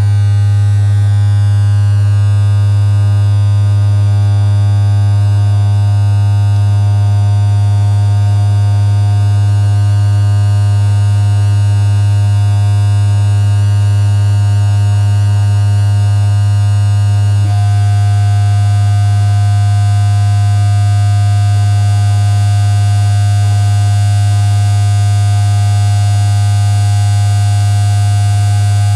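Loud live electronic drone from a tabletop rig of effects pedals and electronic boxes: a heavy steady low hum under many held higher tones, with high tones slowly sweeping downward over the first dozen seconds and the upper layer shifting a little past the middle.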